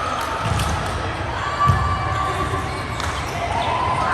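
Indoor volleyball play: a few dull thuds of ball and bodies on the court, the loudest a little under two seconds in, with short squeaks of shoes on the court floor.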